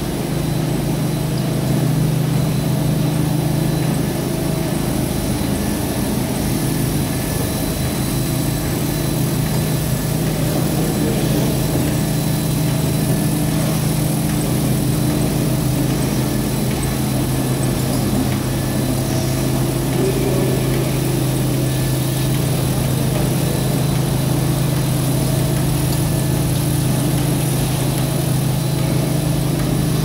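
Maxis automatic carpet washing machine running, its electric motors and brushes giving a steady mechanical hum.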